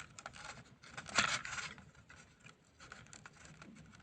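Small plastic Polly Pocket playset pieces being handled and pressed into place: light clicks and scratching of plastic on plastic, with a louder scrape about a second in.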